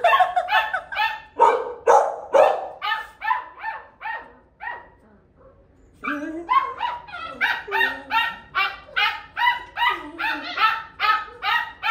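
Dog barking in a fast run of short, repeated barks, about three a second, with a pause of about a second and a half in the middle before the barking picks up again.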